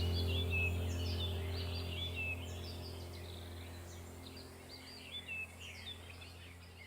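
Several songbirds chirping and trilling in short quick phrases over a low steady hum. The hum and the whole ambience fade away gradually.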